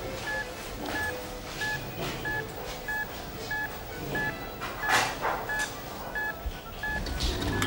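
Patient heart monitor beeping steadily, one short high beep with each heartbeat, about one and a half beeps a second. Faint rustling and clatter come over it, the loudest a knock about five seconds in.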